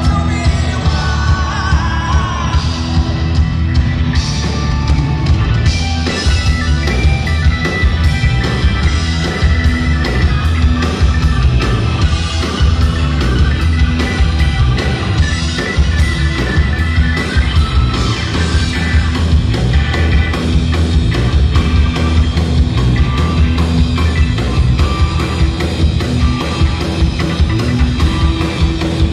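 Live rock band playing loud: electric guitars over a Tama drum kit keeping a steady beat.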